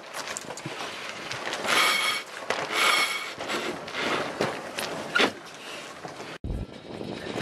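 Wind buffeting the microphone and a sailboat's luffing headsail flapping and rustling, with two short squeaks about two and three seconds in. The sound cuts off abruptly near the end.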